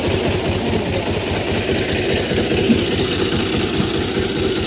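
Fiat 480 tractor's three-cylinder diesel engine running steadily with an even, rapid firing beat while it drives a water pump.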